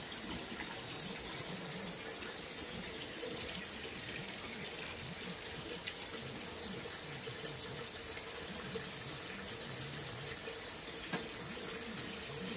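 Water running steadily, like a tap left on, with a faint steady hum under it.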